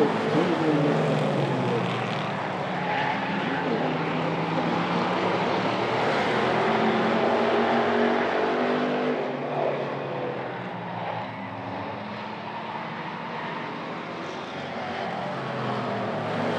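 Several hobby stock race cars' engines running at racing speed around an oval, their pitches rising and falling as they lap. The sound swells as the pack passes closest about halfway through, then drops back as the cars move away.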